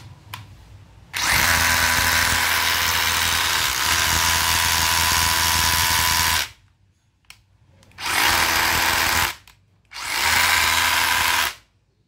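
DeWalt DCH172 20V brushless compact SDS-plus rotary hammer running free in the air on three trigger pulls: a steady run of about five seconds, then two short bursts.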